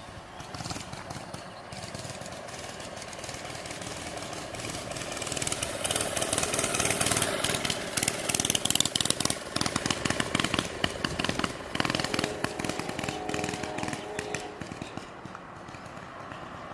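Small single-cylinder Briggs & Stratton engine of a vintage Taco 22 mini bike running under way. It grows louder as the bike comes close in the middle, then fades as it moves off.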